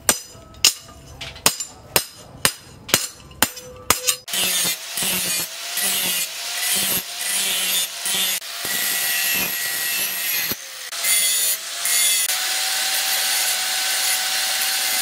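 A hammer strikes a steel blade, cut from a plough disc, on an anvil about twice a second. After about four seconds this gives way to an angle grinder with a sanding disc grinding the blade's steel edge, its whine wavering and dipping at times, then running steady near the end.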